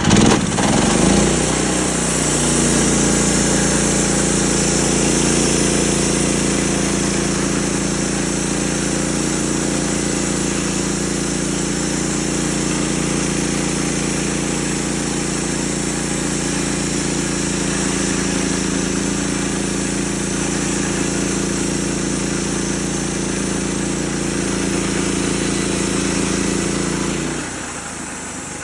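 Norwood LM30 band sawmill running steadily under load, its engine and band blade sawing a white oak cant. The sound drops in level near the end.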